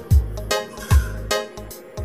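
Background music with a steady beat and a deep kick drum.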